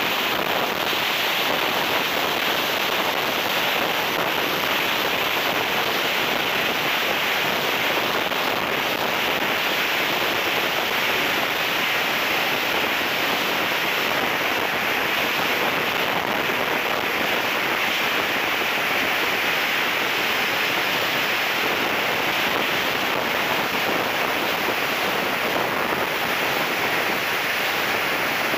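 Steady rush of air and turbine noise aboard a BVM F9F-6 Cougar radio-controlled jet in flight, picked up by its wing-mounted camera. A faint high whine steps a little lower in pitch a couple of times.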